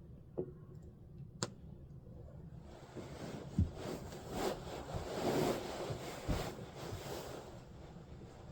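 Two sharp clicks, then several seconds of rustling and scraping handling noise with two soft thumps in the middle.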